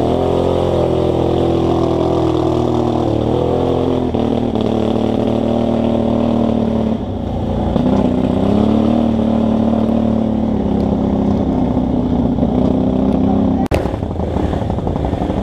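ATV engine running on throttle through its belt transmission, its pitch climbing and holding, dipping briefly twice and rising again about halfway through. A sharp click comes near the end.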